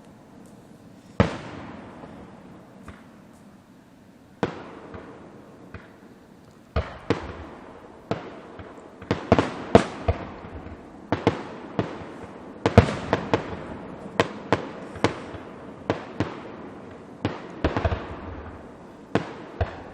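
Fireworks bursting overhead, each bang trailing off in a reverberant rumble. A few single bangs seconds apart give way, about seven seconds in, to a rapid string of bursts, several a second at times.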